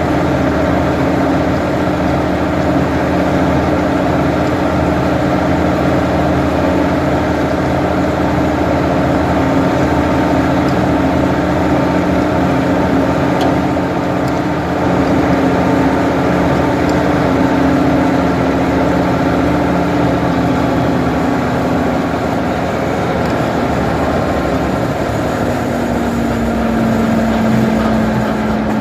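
Ford 550 backhoe's engine running steadily under throttle, its pitch settling lower late on.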